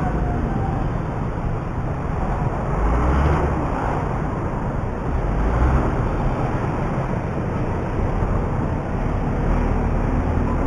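A motorcycle underway on the road: a steady rumble of engine, wind and road noise.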